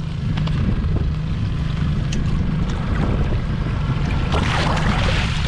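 Wind buffeting the microphone over the steady hum of a Yamaha 80 hp four-stroke outboard running at trolling speed, with waves against the hull. About four and a half seconds in, a hooked fish splashes briefly at the surface near the landing net.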